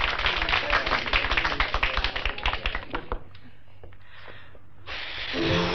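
Applause from a small group, a dense patter of hand claps that dies away about three seconds in; a band starts playing just before the end.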